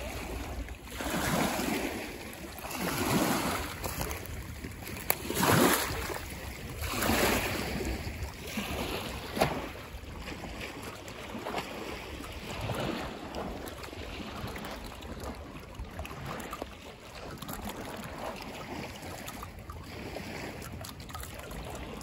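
Small lake waves sloshing against the shore and a floating dock in irregular surges every couple of seconds, the biggest in the first ten seconds, over a steady low rumble of wind.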